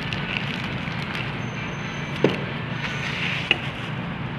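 Thin clear plastic bag crinkling as a phone screen assembly is slid out of it, with two light clicks about two and three and a half seconds in, over a steady background hum.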